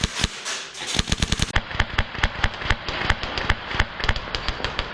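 Airsoft guns firing rapid strings of shots, many per second, in sharp cracks with pauses between bursts.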